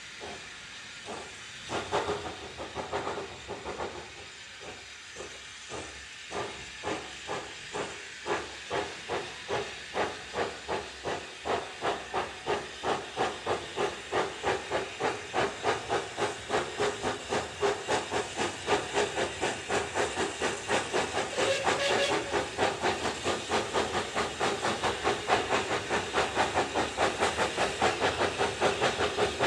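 Steam locomotive pulling away, its exhaust beats growing louder and quickening as it gathers speed, over a steady hiss of steam.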